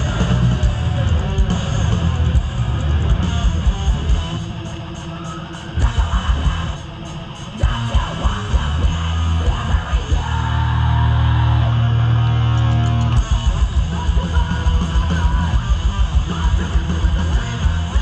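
A heavy rock band playing live through a festival PA, heard from within the crowd: distorted electric guitars, bass and pounding drums. The band cuts back briefly twice in the first half, then holds a low ringing chord for about three seconds before the drums come back in.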